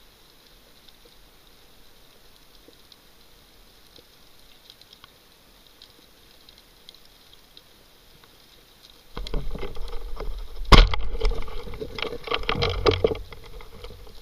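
Band-powered speargun fired underwater: faint crackling at first, then loud knocking and rattling start about nine seconds in, with one sharp crack a second and a half later and further strikes of the shaft and shooting line before it dies down.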